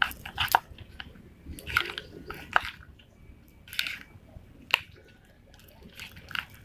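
Sticky homemade slime being worked and squeezed, giving irregular wet clicks and squelches. The slime is still somewhat sticky.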